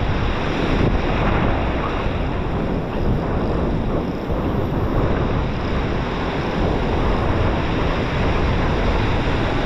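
Heavy surf washing and breaking close by, a steady loud rush, with wind buffeting the microphone.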